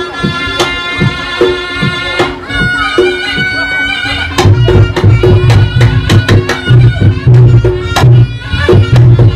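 Live Reog Ponorogo gamelan: a slompret (shawm) holds a reedy melody over kendang drums and gong strokes. About four and a half seconds in, a loud, fast low beat comes in and the playing grows louder.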